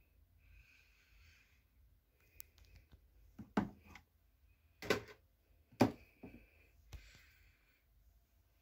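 A few sharp clicks and knocks over faint room hiss. Three loud ones come roughly a second apart in the middle, followed by a couple of softer ones.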